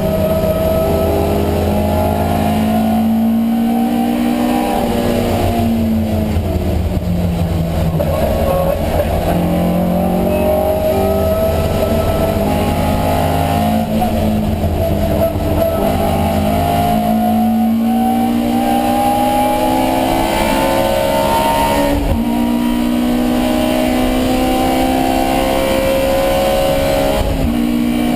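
Alfa Romeo Giulia 1600's twin-cam four-cylinder engine at race pace. Its pitch climbs again and again as it pulls through the revs, then drops sharply at each gear change, for example about 22 seconds in and near the end, with some stretches of falling revs in between.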